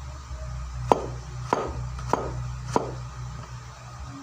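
Kitchen knife chopping ginger on a cutting board: four sharp strokes about every 0.6 seconds, over a low steady hum.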